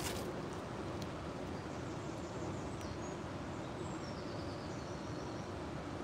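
Shallow river flowing over stones and riffles, a steady rushing of water. A few faint high bird chirps come through about two to five seconds in.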